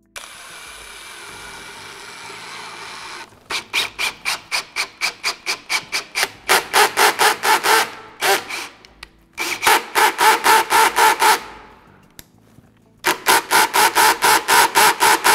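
Worx 20V cordless drill/driver driving long wood screws into a wooden table leg. It runs steadily for about three seconds, then goes in three runs of rapid pulses, about five or six a second, with short pauses between them.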